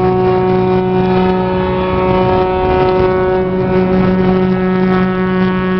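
A vehicle horn held in one long, steady blast at a constant pitch, over the road and engine noise of a moving vehicle.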